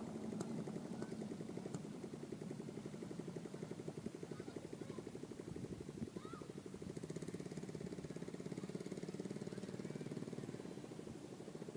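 An engine running steadily with a fast, even pulse, with a few faint high squeaks about halfway through.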